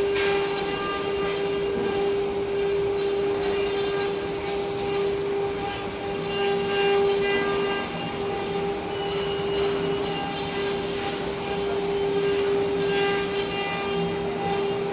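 CNC wood-carving router running, its spindle giving a steady high whine over a rough hiss.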